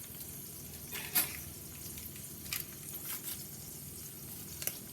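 Sofrito and seasonings frying in hot oil in a pot: a steady sizzle with a few sharp crackles and clicks scattered through it.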